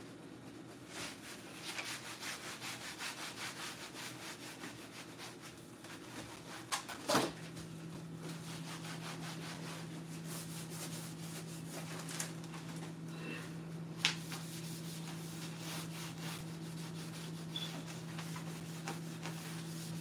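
Cloth wiping the painted door of a refrigerator in quick back-and-forth strokes. About seven seconds in there is a sharp click, after which a steady low hum sets in; there is another click about halfway through.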